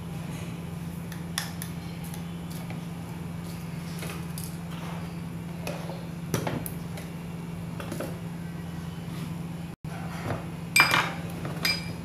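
Kitchenware being handled: scattered light clicks and knocks, then a few sharper ringing clinks near the end, all over a steady low hum.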